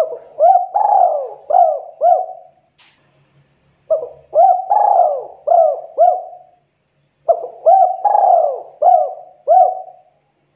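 Spotted dove (tekukur) cooing. There are three phrases about a second apart, each about two and a half seconds of five quick rising-and-falling coos.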